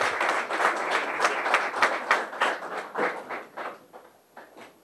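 Applause from a small standing group, at first dense, then thinning to a few scattered claps and dying away near the end.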